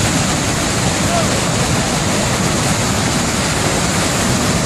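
Iguazú Falls: a large waterfall and the churning river below it, a loud, steady, even rush of falling water.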